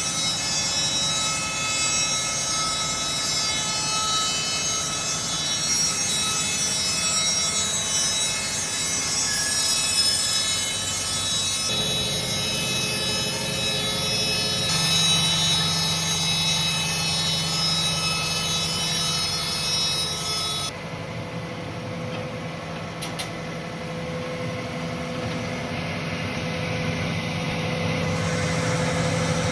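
Trak Met TTS 800 horizontal bandsaw running, a steady mechanical hum with several high, steady whining tones. The sound changes abruptly a few times, most clearly about two-thirds of the way in, where the high whine drops away and a lower hum remains.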